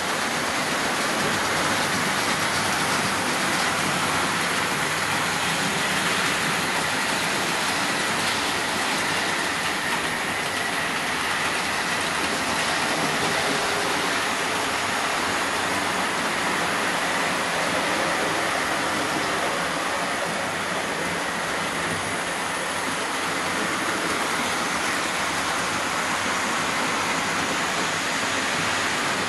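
Several OO gauge model trains running at once: a steady whirr of small electric motors and wheels rolling on the track, with a faint steady high whine.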